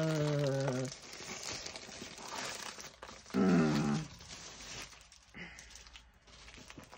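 Clear plastic wrapping crinkling and rustling as a rolled diamond-painting canvas is handled and unwrapped, with a short vocal sound falling in pitch about halfway through.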